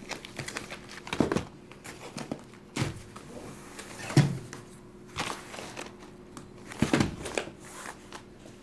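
Shrink-wrapped trading-card hobby boxes being handled and set down on a table: several soft knocks as the boxes are placed and stacked, the loudest about four seconds in, with the plastic wrap crinkling between them.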